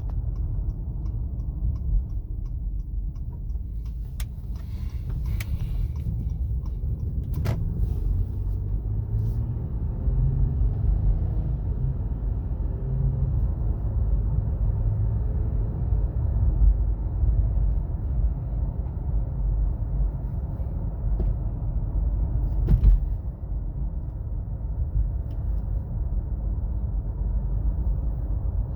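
Inside the cabin of a 2017 Acura MDX driving on the road: a steady low rumble of road and tyre noise, with a faint whine in the middle stretch and a few sharp knocks. The whine rises with speed and is, the owner thinks, probably coming from the front passenger side.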